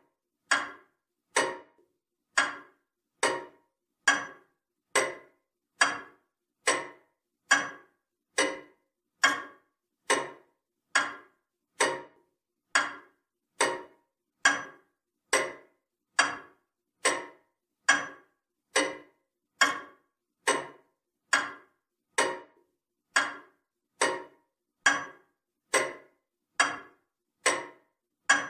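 Comtoise clock ticking at a steady 70 beats a minute, a little more than one tick a second, each a sharp click that dies away quickly.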